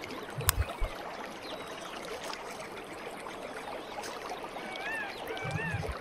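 Steady rush of running water with small crackling ticks throughout. From about three-quarters of the way in, a bird repeats a short rising-and-falling chirp roughly twice a second. A few soft low thuds come in the first second.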